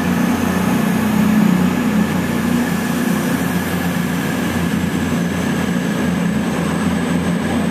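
CrossCountry Voyager diesel-electric multiple unit pulling out of the station. Its underfloor diesel engines give a steady, loud drone as the carriages run past.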